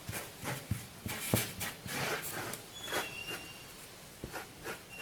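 Irregular scrubbing and dabbing strokes, a few per second, of paint being rubbed onto a styrofoam faux log.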